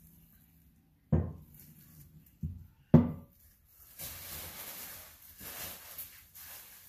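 A tubular steel exhaust manifold for a 2JZ-GE set down and shifted on a workbench: three sharp knocks about a second apart, the last the loudest. This is followed by bubble wrap being gathered up and crinkling for a couple of seconds.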